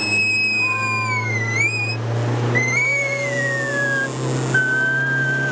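A young girl screaming with delight in three long, high-pitched squeals that sag in pitch, over the steady low drone of a speedboat's engine.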